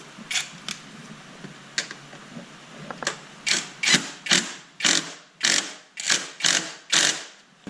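Hand ratchet wrench clicking as a bolt is tightened: a few single clicks, then about two strokes a second of ratcheting.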